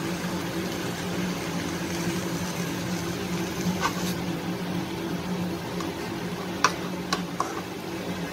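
Steel spatula clicking against an aluminium kadai while thick bhaji is stirred: one click about four seconds in and three in quick succession near the end. A steady low motor hum runs underneath.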